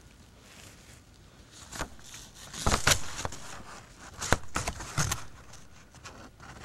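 Paper cards being handled on a tabletop: crinkling rustles and a few sharp taps and clicks in a cluster from about two to five seconds in.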